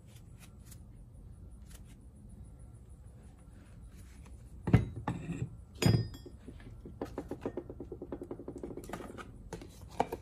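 Metal starter motor parts being handled during reassembly: two sharp metal knocks a little over a second apart, then a quick, even run of clicks lasting about two seconds and a last single click.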